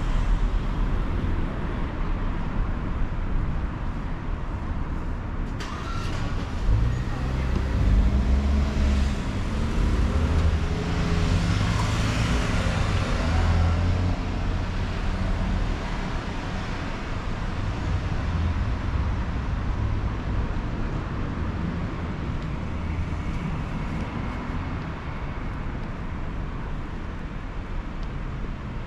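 Road traffic: a motor vehicle passes close, loudest from about eight to fourteen seconds in, over a steady low rumble.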